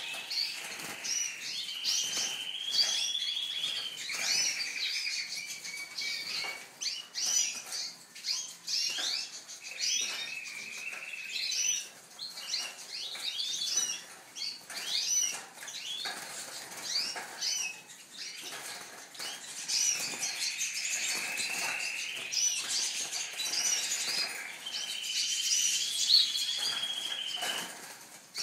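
Several small caged birds chirping, with a two-to-three-second trill coming back again and again, amid frequent wing fluttering.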